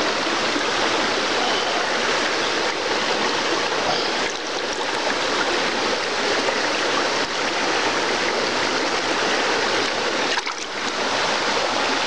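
A rocky trout stream rushing over riffles, a steady wash of running water.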